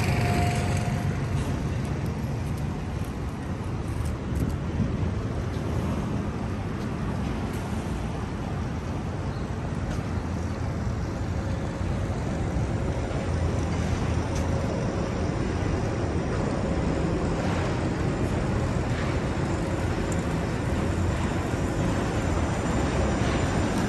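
City street ambience: a steady low rumble of road traffic under a general haze of street noise.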